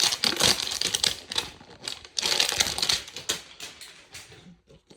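Packaging of a trading-card hanger box being torn open by hand: crackling, crinkling and tearing in two spells, near the start and again about two seconds in.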